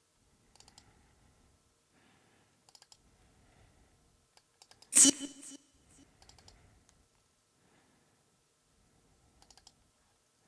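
Computer mouse clicking in small clusters of a few clicks at a time. About five seconds in, one much louder short sound lasts about half a second.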